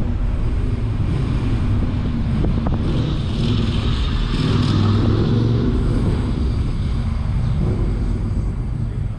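Car driving slowly: steady low engine and tyre rumble. About three seconds in an oncoming motorcycle swells in as it passes, then fades by about six seconds.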